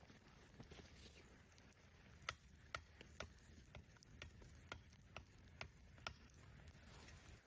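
A run of faint, sharp clicks, about two a second, over a low rumble, starting about two seconds in and stopping near six seconds.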